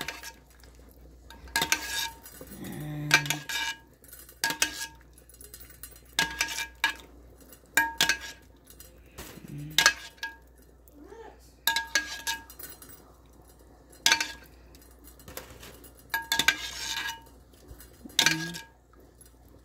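Metal cookware and utensils clinking: a string of sharp clinks every second or two, each ringing briefly at the same pitch, as a pot is handled and worked.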